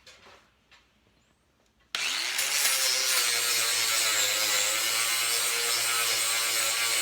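Angle grinder spinning up about two seconds in, its motor whine rising and then holding steady, then grinding the fresh welds on a steel hitch piece. Before that, a few faint clicks of handling.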